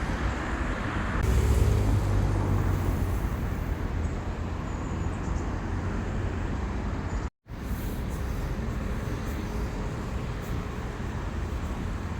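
Steady traffic and street noise, a low rumble of road vehicles. It cuts out abruptly for a moment about seven seconds in, then resumes.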